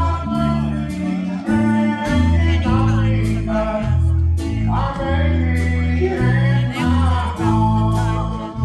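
Live country band playing a honky-tonk number: a man singing over guitar, a moving bass line and drums.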